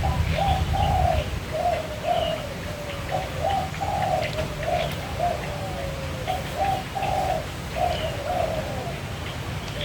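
A dove cooing: a long run of short, soft cooing notes, roughly two a second, over a steady low rumble.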